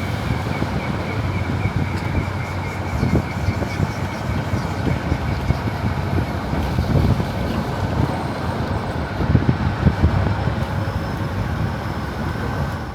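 Motor vehicle on the road, heard from on board: steady engine and road noise with a dense low rumble, cutting off suddenly at the end.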